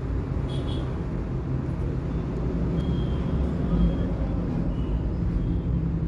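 Steady low background rumble like passing road traffic, with a few faint short high beeps scattered through it.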